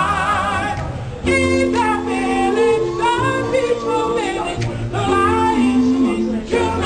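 A group of men singing a cappella in close harmony: lower voices hold long chord notes while a higher lead voice slides and wavers above them.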